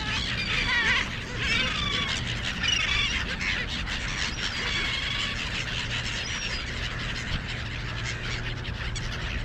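Gulls calling over and over, a dense chorus of short, curved calls in the first few seconds that thins out later, over a steady low background rumble.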